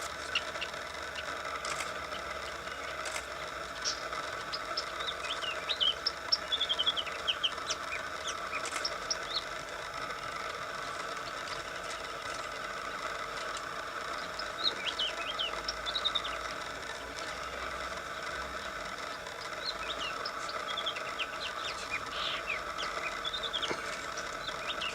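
Birds chirping in short runs of quick high calls, coming and going several times over a steady background hum.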